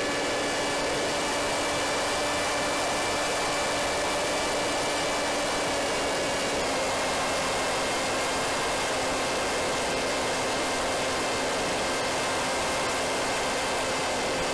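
Onboard sound of a Wing Wing Z-84 flying wing in flight: its electric pusher motor and propeller give a steady whine over a heavy rush of wind noise. The whine drops slightly in pitch about halfway through.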